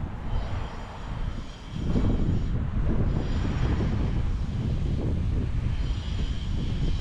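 Outdoor street noise: an uneven low rumble of road traffic and wind, growing louder about two seconds in.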